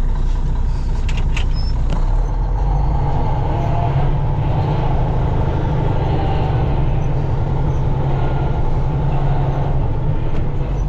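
Truck engine running steadily, a low even hum.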